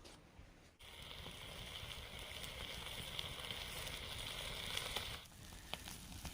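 Food cooking over a coal campfire: a steady sizzling hiss with scattered pops and crackles. It starts suddenly about a second in and drops away sharply near the end, leaving only occasional crackles.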